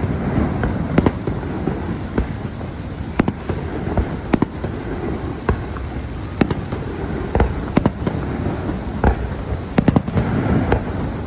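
Fireworks show: aerial shells bursting in sharp bangs and pops at irregular intervals, several a second at times, over a steady low rumble.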